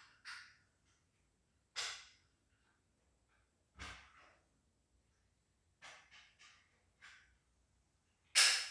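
A person's breathing: short, irregular breaths and sighs, about one every second or two, with the loudest breath near the end.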